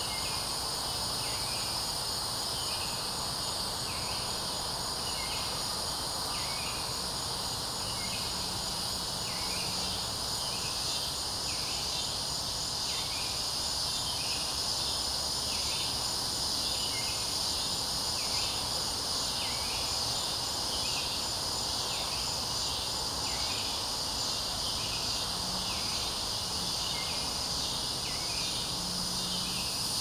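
Late-summer forest insect chorus: crickets and other insects keep up a steady high shrill, while a lower chirping call repeats about once every second or so throughout.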